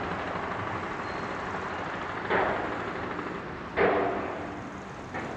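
Steady rush of wind and tyre noise from riding an unpowered recumbent bicycle, with two brief louder sounds about two and a half and four seconds in.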